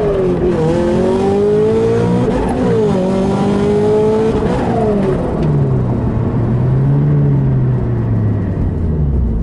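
Turbocharged Scion FR-S flat-four engine under acceleration, heard from inside the cabin: the revs climb and drop sharply twice as it is shifted up through the gears, then settle lower and steadier and fall away near the end.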